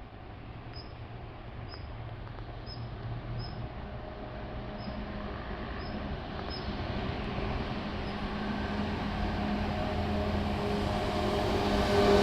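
Electric train approaching along the line: a steady running hum and rail noise that grow louder throughout.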